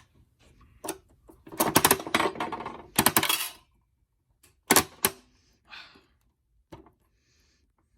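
Crank of a coin-operated bouncy ball vending machine being turned, its coin mechanism ratcheting in a fast run of clicks, then a second burst, followed by a few single sharp clicks and knocks.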